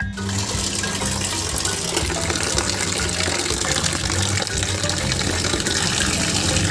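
Water running steadily, like a tap gushing, over background music; it starts abruptly and stops just after the end.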